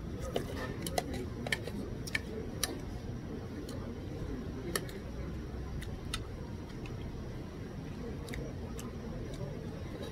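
Metal spoon clicking against a plate while eating fried rice: a dozen or so light, irregular clicks over a steady low background hum.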